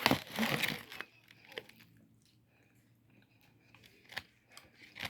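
A person biting into crispy food, a loud crunch in the first second, then quieter chewing with small scattered clicks.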